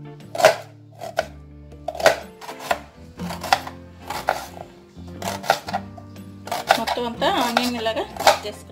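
Kitchen knife slicing onions on a cutting board: irregular sharp taps as the blade strikes the board, over background music.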